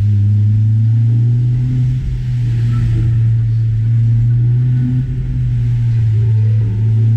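Car driving along at a steady speed: a loud, steady low drone of engine and road noise.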